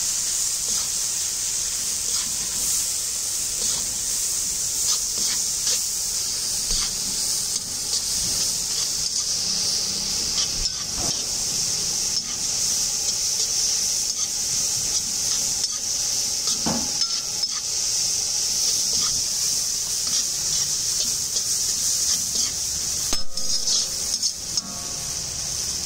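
Mixed vegetables and soya chunks sizzling in oil in a large kadai as they are stir-fried, with a slotted spatula scraping and clicking against the pan as it is turned slowly through them.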